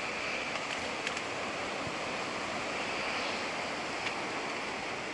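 Steady outdoor background hiss with no distinct source, broken by two faint clicks about a second in and near the end.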